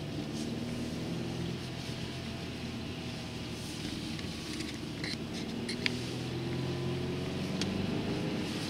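Car driving, heard from inside the cabin: steady engine and road rumble, the engine note rising a little as the car speeds up in the second half. A few short sharp clicks sound about five to six seconds in.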